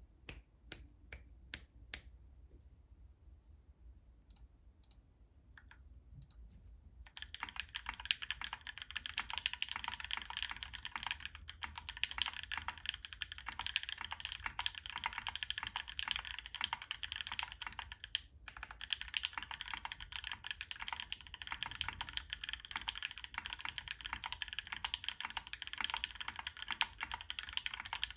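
Typing on a Monokei Kei R2 custom mechanical keyboard with Thic Thock Marshmallow linear switches, ePBT keycaps and an aluminium plate. A few scattered keystrokes at first, then steady fast typing from about seven seconds in, with a brief pause past the middle.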